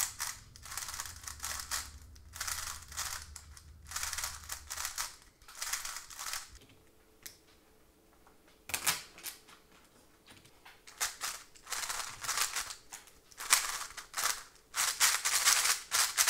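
GAN 356X magnetic speedcube turned rapidly by hand: bursts of quick plastic clicking and clacking as the layers snap into place. There is a short pause about halfway through.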